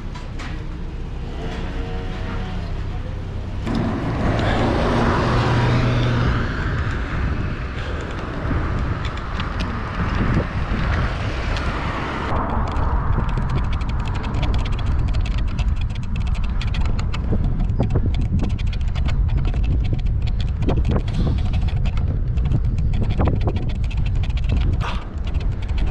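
Wind noise on the microphone of a moving bicycle: a heavy low rumble with many small clicks and rattles, from about twelve seconds in. Before that, busy street noise with a motor vehicle's hum.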